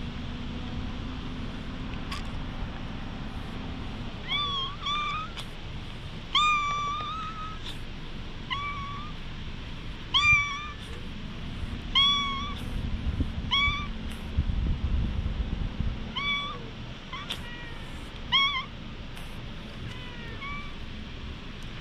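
A tabby stray cat meowing over and over while being petted: about fifteen short, bending meows from about four seconds in until near the end.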